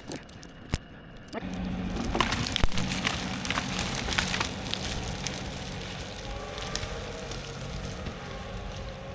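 Tractor engine coming up to power about a second and a half in and dragging a chained log out through brush, with branches cracking and snapping over the engine, most densely in the first few seconds of the pull. A single knock comes just before, as the chain takes up.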